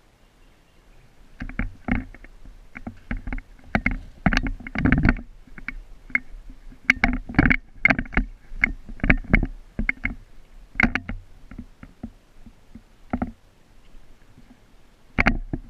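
Airsoft rifle shots, a G&G AR-15 style gun, fired as irregular single shots and short quick strings, with the densest firing from about four to eleven seconds in.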